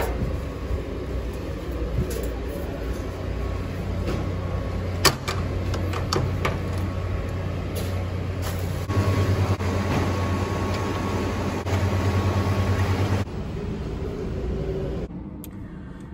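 Steady hum of laundromat machines while clothes are pushed into a front-loading washer and its stainless-steel door is handled and shut, with a sharp knock about five seconds in.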